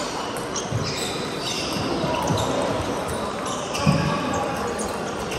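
Table tennis balls clicking irregularly off bats and tables, with a few heavier thuds among them.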